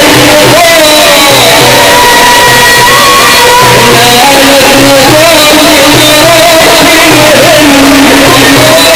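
Egyptian Sufi inshad: a male munshid singing a long, ornamented line into a microphone, amplified and loud, over band accompaniment with a steady pulsing low beat.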